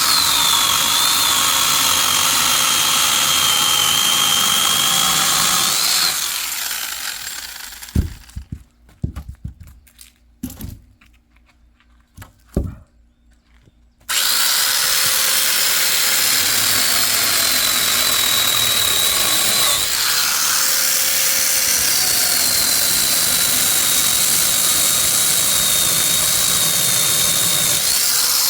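A power saw cutting firewood, a loud steady running with a high whine that dips and rises as it works. About six seconds in it winds down, a few sharp knocks follow, and at about fourteen seconds the saw is running again.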